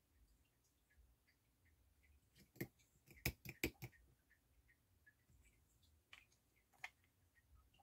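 Faint clicks and taps of small metal tonearm parts being handled on a workbench: a quick cluster of about five around the middle and two single clicks near the end, with near silence between.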